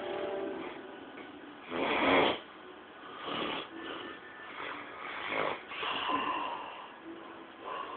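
A man snoring loudly in his sleep: a buzzing snore at the start, then a string of separate rasping snores, the loudest about two seconds in.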